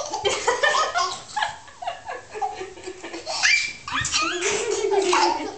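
Young children laughing and squealing in play, with several high-pitched wavering squeals partway through.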